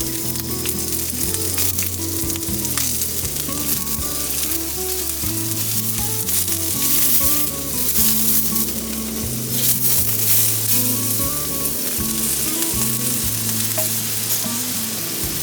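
Food sizzling and frying steadily in a pan, with a dense hiss, over background music with held low notes that change every second or so.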